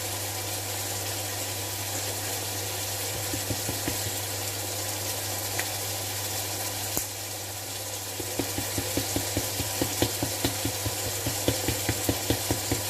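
Minced meat and onion sizzling in a frying pan over a steady low hum. From about eight seconds in, a spatula scrapes and taps against the pan in a quick, even rhythm of about three strokes a second as the mince is stirred.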